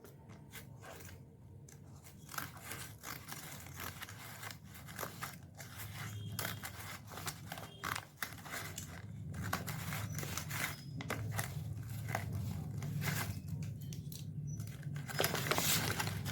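An Amazon parcel being opened by hand: irregular snipping, tearing and crinkling of the packaging, growing louder toward the end.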